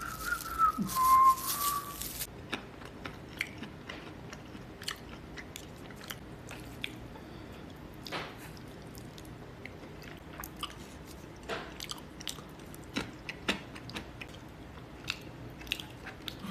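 Faint, scattered clicks and crunches, like a person chewing close to the microphone. In the first two seconds, a short whistle-like tone sounds over a burst of hiss.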